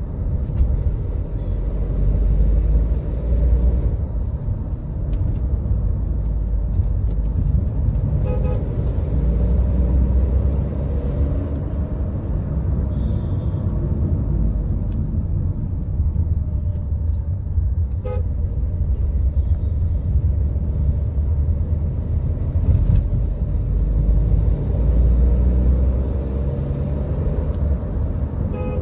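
Tata Nexon accelerating hard in third gear at about 40 km/h, with a loud, low, continuous rattling rumble that the owner cannot place. Short car horn toots sound a few times.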